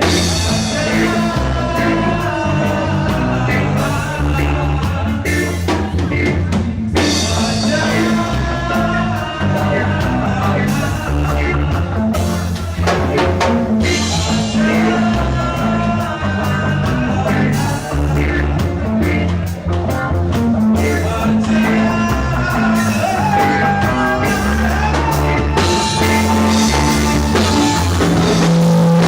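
A rock band playing a song with drum kit and bass, and singing over it.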